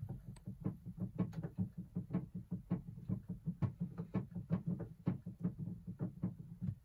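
Keys of a digital piano tapping and knocking as it is played through headphones, so only the key action is heard and not the notes: a quick, uneven run of soft taps, several a second.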